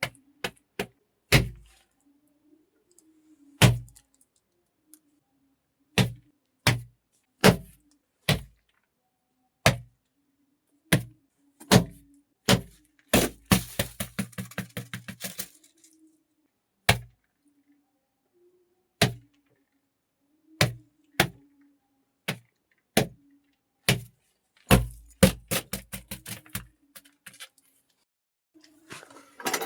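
Sharp foley knocks and thuds struck one at a time, about a second apart, with a quick rattling flurry of hits in the middle and another tight cluster near the end.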